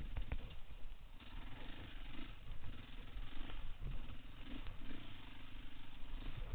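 Four-stroke single-cylinder dirt bike engine running at low revs, its note wavering slightly, with a few sharp knocks near the start.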